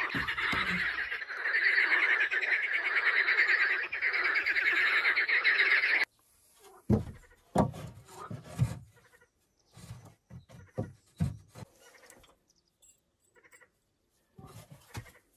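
A dense chorus of frogs calling, a fast steady pulsing, cuts off suddenly about six seconds in. After it come scattered wooden knocks and scuffs as the boards and legs of a wooden bench are handled and set in place.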